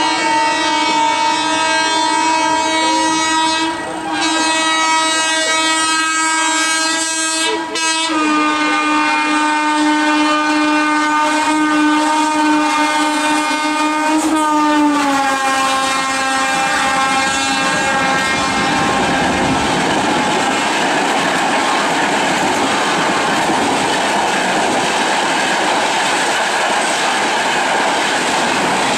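WAM-4 electric locomotive's twin-tone horn sounded continuously as the train runs through at speed, broken twice briefly. Its pitch drops slightly as the locomotive goes by, and the horn fades out after about 18 seconds into the steady rush and clatter of the passing coaches.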